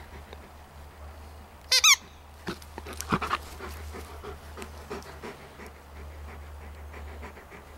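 Dog giving two sharp, high-pitched squeals in quick succession about two seconds in, followed by a few soft clicks and snuffles.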